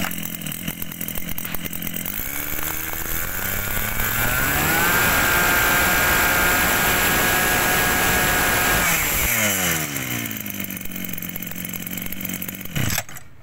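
Maruyama 32 cc two-stroke brush-cutter engine running at idle, revved up over a couple of seconds to full throttle and held there for about four seconds, then let back down to idle and shut off near the end.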